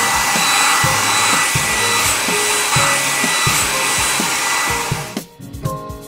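Hair dryer running steadily with a high whine, blowing the washed truck dry; it cuts off about five seconds in.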